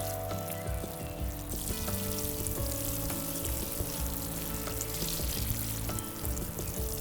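Food frying in a pan, a steady crackling sizzle that grows fuller about a second and a half in, with soft background music under it.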